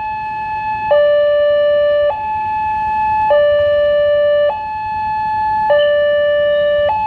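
Railway level-crossing warning siren sounding a two-tone hi-lo signal, switching between a higher and a lower note about every 1.2 seconds, the lower note louder. It is warning of an approaching train.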